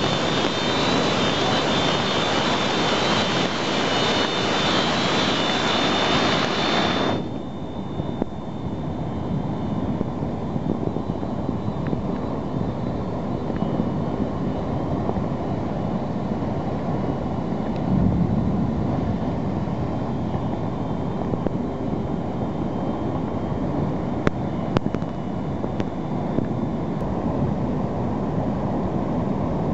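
Flash-flood torrent of muddy water rushing through a narrow stream channel, a loud, steady rushing noise. About seven seconds in, a bright hiss over it cuts off abruptly, leaving a deeper rush.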